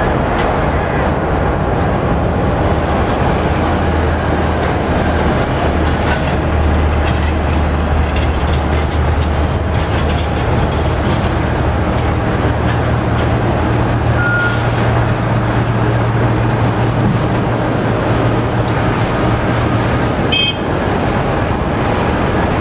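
Steady roar of a Boeing 767-300's jet engines heard across the airfield as it holds on the runway, with a low hum underneath that steps up in pitch about halfway through.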